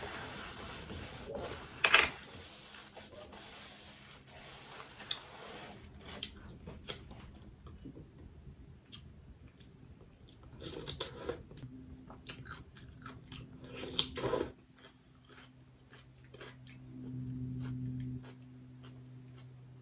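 Eating boiled crawfish: shells cracking and snapping as they are peeled, and chewing, with a sharp crack about two seconds in and another near two-thirds through. A low steady hum comes in about two-thirds through.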